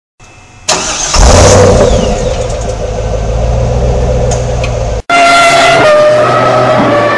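A car engine starting and running loud and steady. It cuts off suddenly about five seconds in, followed by a revving engine whose pitch drops in steps.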